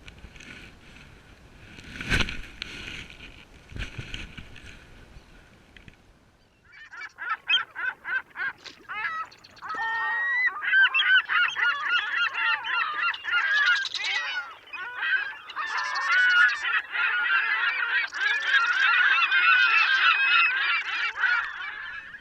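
A flock of birds calling together, many harsh overlapping calls that start about seven seconds in and grow denser and louder. Before that, two knocks about two seconds apart over a faint background.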